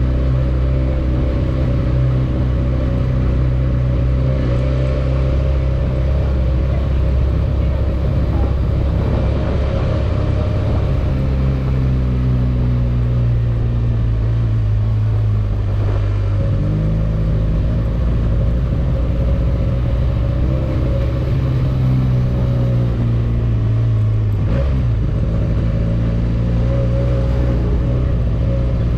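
Benelli 302S motorcycle's parallel-twin engine running under way, its pitch shifting up and down a few times, with a brief break in the sound about three-quarters of the way through.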